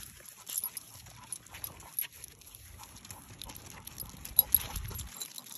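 Two basset hounds walking on leashes: irregular light clicks and jingling from the metal ID tags and rings on their harnesses and their claws on the sidewalk.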